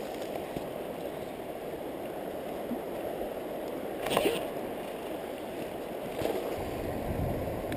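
Stream current flowing steadily, a low rushing of water, with a short louder noise about four seconds in.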